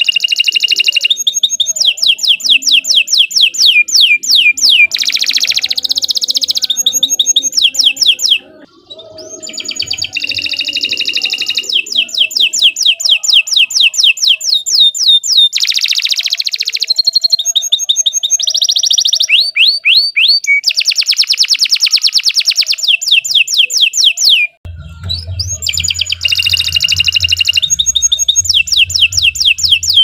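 Domestic canary singing a long, loud song of fast trills, each run a quick string of repeated notes, broken only by two short pauses.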